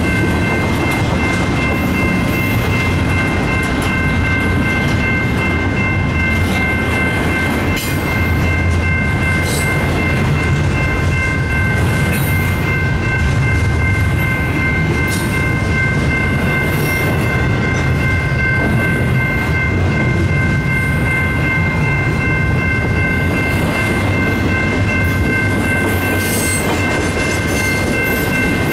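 Double-stack intermodal container cars rolling past at speed: a steady rumble with wheel clatter. Through it, steady high ringing tones hold throughout, which fit the grade-crossing bell ringing.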